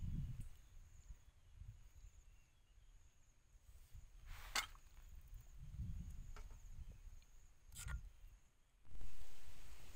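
Low, uneven rumbling noise with two sharp clicks in the middle, then a sudden louder rush of noise near the end.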